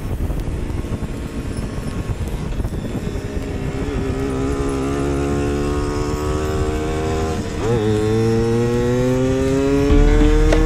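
Simson S53E moped's two-stroke engine accelerating, its pitch climbing steadily, dropping once at a gear change about three quarters of the way through, then climbing again and growing louder near the end.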